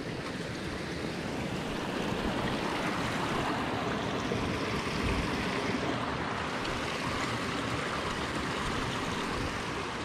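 Unseen forest creek rushing steadily, swelling louder through the middle and easing off near the end.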